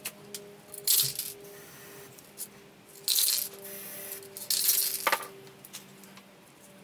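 Spray-paint aerosol can hissing in three short bursts, with scattered sharp clicks and rattles between them.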